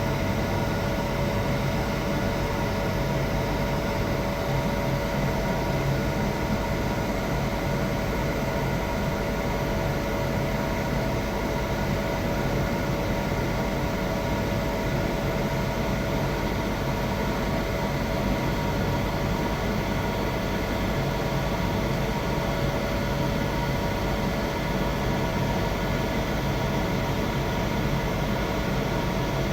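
Electric arc welding the root pass on a pipe joint: a steady, unbroken arc noise with a constant hum.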